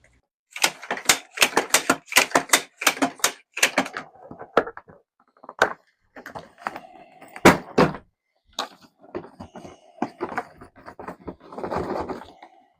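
Wrangler Astral 20-inch hard-shell carry-on suitcase being knocked about in a durability test. A quick run of hard thuds and knocks comes first, then scattered knocks, then two loud thuds in quick succession just past halfway.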